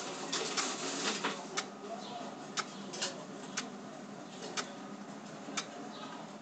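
Steady room noise with sharp ticks about once a second, a few quicker clicks in the first second or so.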